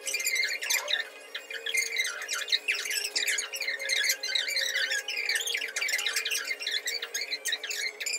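Small birds chirping and chattering, a dense run of quick, high chirps with no pause, over a faint steady tone.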